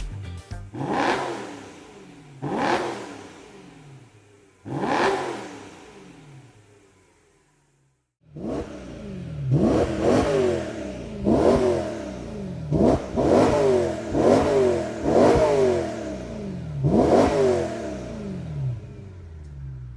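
BMW E92 M3's S65 4.0-litre V8 revved through its exhaust in short blips, each rising in pitch and falling away. Three blips come first, then the sound cuts out and a quicker series of about eight blips follows.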